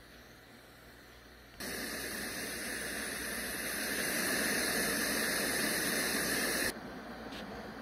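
Letsfit sleep sound machine playing a steady white-noise hiss through its speaker. It comes on abruptly about a second and a half in, swells slightly, and cuts off suddenly near the end, giving way to a quieter, duller hiss.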